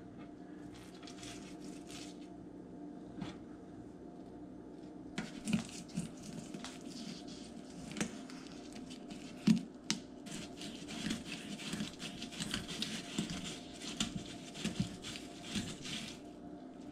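A knife working a whole yellowfin croaker on a wooden cutting board. From about five seconds in there is an irregular scraping and crackling as the blade goes over scales, skin and flesh, with a few louder knocks of the knife against the board.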